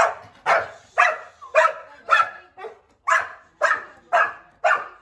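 Chocolate Labrador retriever barking angrily in a steady run of loud barks, about two a second.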